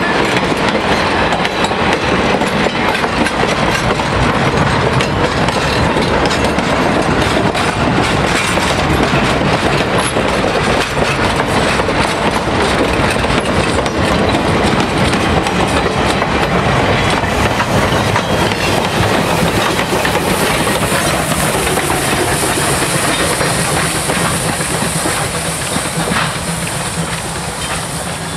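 Passenger cars and cabooses of a steam excursion train rolling past close by, wheels clicking over the rail joints in a steady clatter that fades over the last few seconds as the train draws away.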